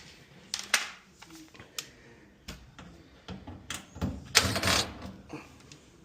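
Scattered clicks and light knocks of hands handling the dryer's panels and tools, with a louder scraping rustle about four and a half seconds in.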